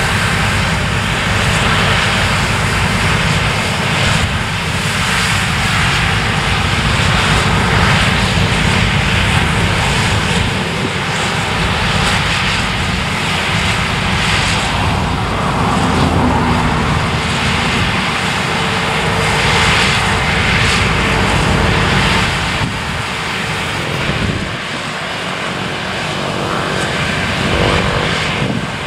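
Claas Lexion 600 TT combine harvester running under load while cutting oilseed rape, a loud, steady drone that gets a little quieter near the end.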